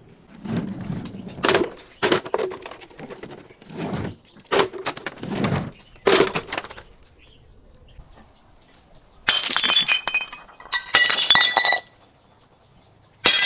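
Glass breaking twice in the second half, each a bright shattering burst about a second long with shards ringing. Before that comes a run of duller crunching impacts, several short crushes a second or so apart.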